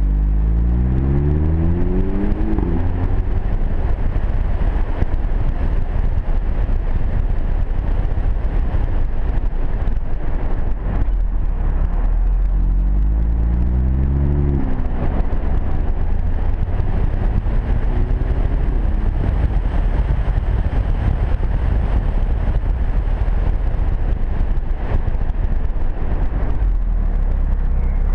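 Audi TT-S turbocharged 2.0-litre four-cylinder exhaust rising in pitch as the car accelerates, once at the start and again about halfway through. In between, steady wind and tyre noise dominate, picked up by a camera mounted on the outside of the car's body.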